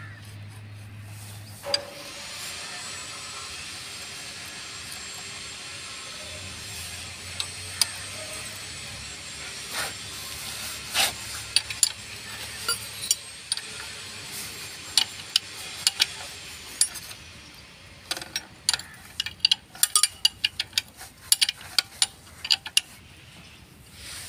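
Metal clicks and clinks of a spanner working the release-lever adjusting nuts on an ACE hydra crane's clutch pressure plate. The clicks come quick and close together in the last few seconds. A steady hiss runs underneath from about two seconds in and stops about two-thirds of the way through.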